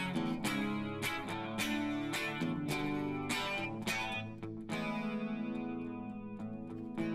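Guitar strumming chords in a steady rhythm, with no singing.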